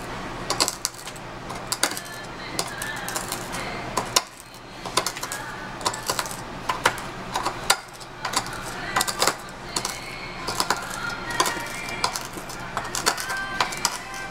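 Metal utensils clinking and tapping irregularly against dishes and tableware.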